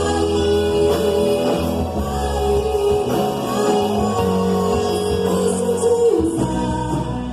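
Band music with singing: a vocal line over sustained bass notes and chords.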